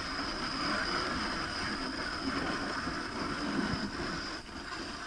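Dog sled moving across packed snow: a steady rushing noise from the runners sliding over the snow as the team pulls.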